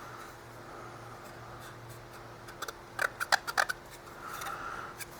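Small plastic and metal parts of a mini LED moving-head light being handled: a quick run of sharp clicks and taps about three seconds in, then a soft rubbing sound, over a faint low hum.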